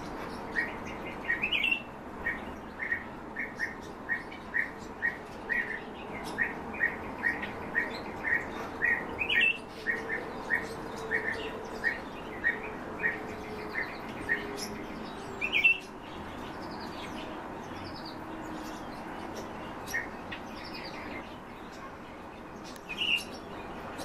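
Song thrush calling: a run of short, clipped notes about two a second for some fifteen seconds, broken by a few louder rising calls, then only occasional calls after that.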